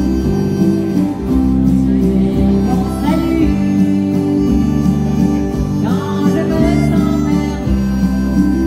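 Live country music: a harmonica played into a microphone carries the melody over acoustic guitar strumming and a steady keyboard bass and backing.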